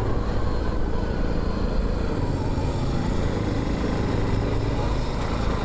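Royal Enfield Continental GT 650's 648 cc parallel-twin engine running steadily as the motorcycle rides along the road.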